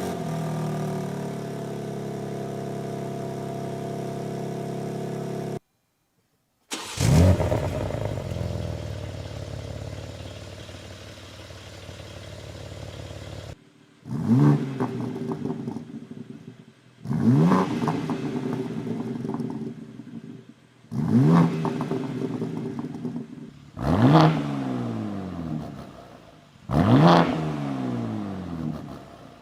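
BMW G80 M3's twin-turbo inline-six running through a Fi EXHAUST valvetronic catback exhaust. It idles steadily at first, then is revved in sharp blips, about one every three seconds, each rising quickly and falling back to idle.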